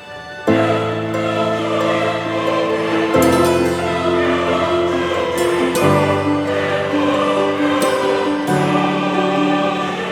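Background music: slow, sustained choral-style chords with voices, changing every few seconds.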